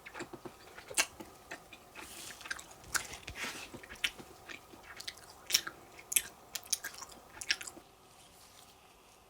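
Close-miked chewing of soft cake: a run of wet mouth clicks and smacks, several a second, that eases off near the end.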